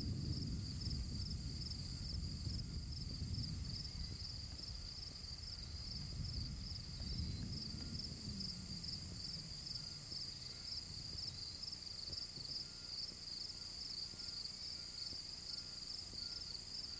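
Insects chirping in a steady, evenly pulsing rhythm, over low rumbling noise.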